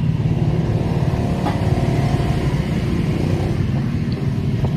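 Steady low engine rumble, like a motor vehicle running close by.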